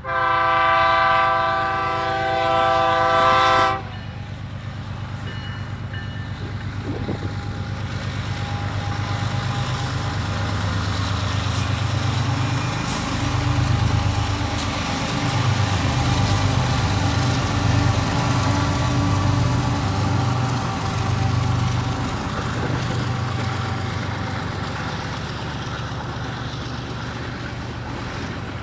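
A freight train's lead diesel locomotive sounds one long blast on its multi-note air horn, cutting off about four seconds in. Then the diesel locomotives pass with a deep engine drone that swells and eases, followed by loaded flatcars rolling by on the rails.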